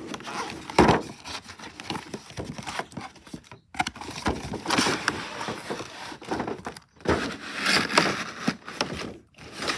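Cardboard box and packaging being handled: irregular rustling, crinkling and scraping, with a sharp knock about a second in.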